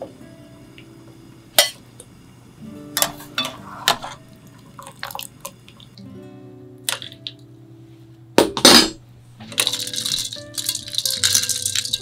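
Ice cubes clinking and water sloshing in a glass bowl as a hand stirs blanched chicken hearts and livers in ice water, starting about two-thirds of the way in. Before that there are a few sharp metal clinks from the ladle and pot and a single splash about halfway, all over soft background music.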